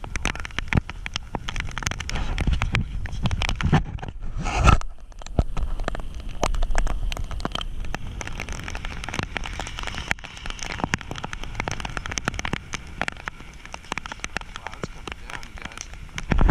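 Heavy rain striking the action camera's housing and microphone: a dense, irregular run of sharp ticks over a low rumble, with one louder bump about five seconds in.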